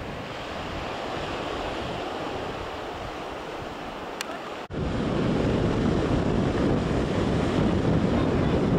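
Small waves breaking on a sandy beach, a steady surf rush. About halfway through the sound cuts abruptly and a louder, deeper rush follows, with wind buffeting the microphone.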